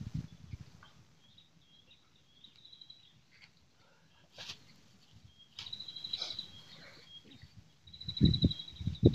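High chirping calls and a steady, high pulsed trill from birds and insects, with a sharp knock about four seconds in and a run of low thuds near the end.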